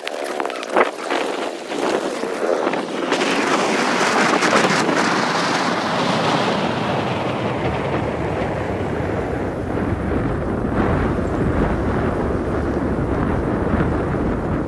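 Wind rushing and buffeting over the microphone on a moving motorcycle. A low rumble thickens about halfway through and holds steady after that.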